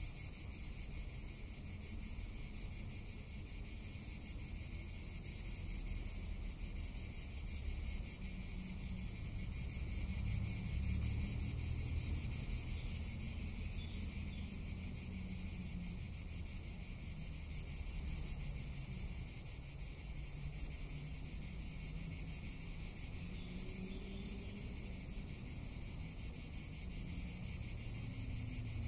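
Cicadas singing in a steady, continuous high-pitched buzz with a fast, fine pulse, over a low background rumble.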